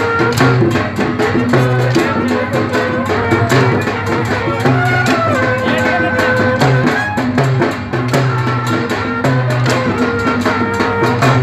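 Rajasthani folk dance music: drums beating a fast, steady rhythm under a held, wavering melody line.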